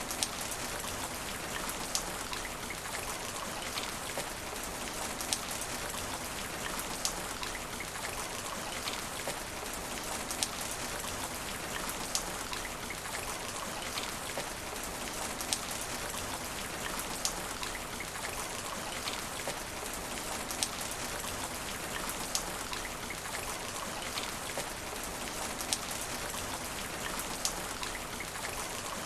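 Steady rain falling on asphalt, an even hiss with sharp single drop hits standing out every second or two.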